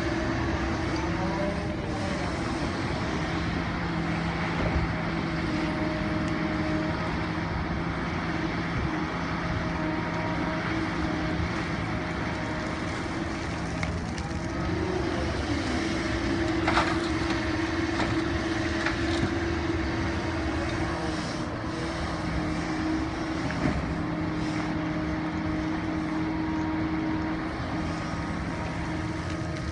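Kobelco SK210LC-9 excavator's diesel engine and hydraulics running steadily under load while it loads topsoil into an articulated dump truck, with a short knock about halfway through.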